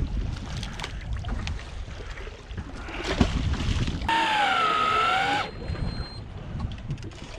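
Wind and water noise aboard a small boat offshore, a steady rumbling wash. Just past the middle comes a brief wavering high tone, lasting about a second and a half, that starts and stops abruptly.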